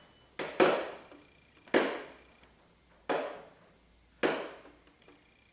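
Hammer blows: four sharp strikes about a second apart, the first one doubled, each ringing out briefly.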